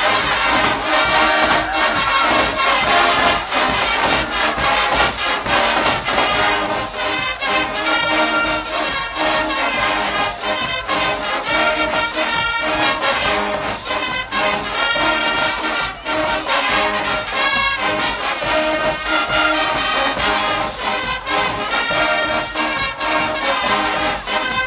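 Guggenmusik band playing loudly: brass over a steady drum beat.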